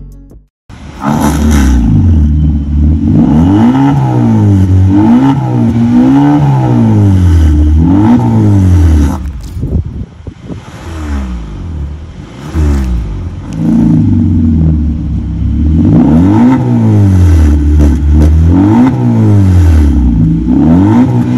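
A Hyundai Sonata's 2.5-litre four-cylinder engine is revved repeatedly through an exhaust with the resonator removed and a vacuum-operated valve fitted. The pitch climbs and falls back again and again, settles lower for a few seconds midway, then the revving resumes.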